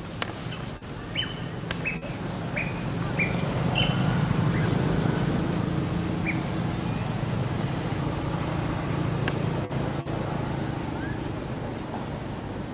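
A motor vehicle engine running with a steady low hum, swelling louder about four seconds in and then slowly easing off. Several short high chirps sound over it in the first few seconds.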